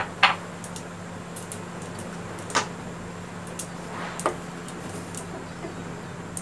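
A few light clicks and knocks of kitchen utensils over a steady low hum and hiss: the sharpest just after the start, others about two and a half and four seconds in. Near the end a wooden spatula goes into the stainless steel pot of lentils with a light tap.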